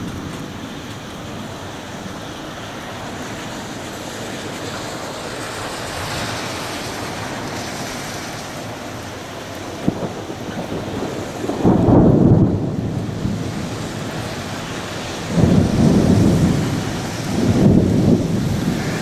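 Thunderstorm: steady rain hiss, then over the second half a short sharp crack followed by three loud rolls of thunder, the first the loudest.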